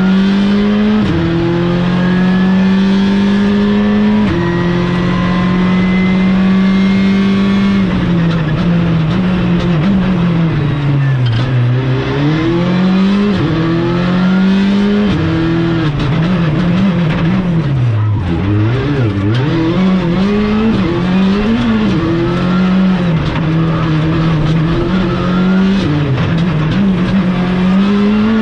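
Skoda Fabia Rally2's 1.6-litre turbocharged four-cylinder engine heard from inside the cockpit at full stage pace. It is held high with two sharp upshifts in the first few seconds, then the revs fall and climb again and again through the middle, settling into a fairly steady pull with quick dips near the end.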